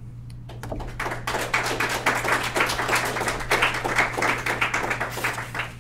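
Audience applauding, a dense patter of many hands clapping that starts about half a second in, builds within a second, and dies away near the end.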